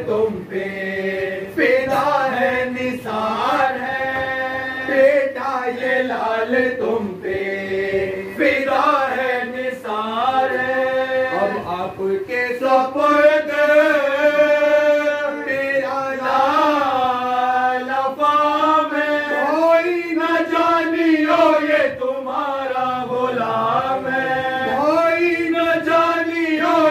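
Men's voices chanting a noha, a mourning lament, together into a microphone in long, sliding melodic lines.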